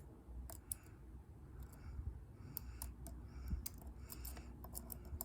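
Lock pick tapping and scraping the pins inside a dimple-key Euro cylinder lock held under tension: faint, irregular small metallic clicks with light scratching in between.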